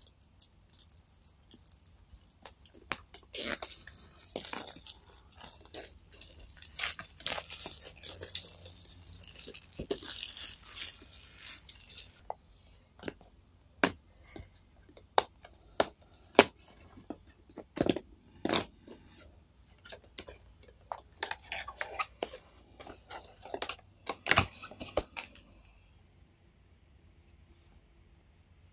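Packaging being torn open by hand: continuous scratchy tearing and crinkling of the wrapping and cardboard of a blind-box display case for about the first twelve seconds. This is followed by a run of separate sharp cardboard knocks and taps as the box is opened, which die away a few seconds before the end.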